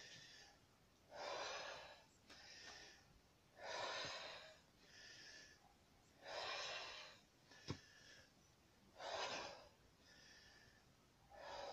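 A man's slow, deep breathing, recovering after sledgehammer work on tyres: four louder breaths about two and a half seconds apart, each followed by a quieter one. A single sharp click a little past halfway.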